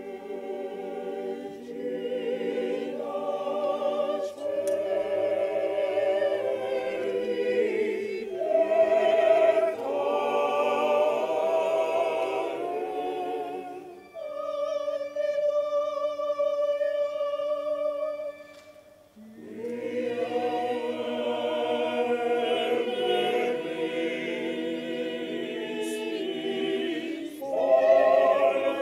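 Opera chorus of men's and women's voices singing with vibrato. Around the middle the voices give way to one steady held note for about five seconds, which fades out before the full chorus comes back in.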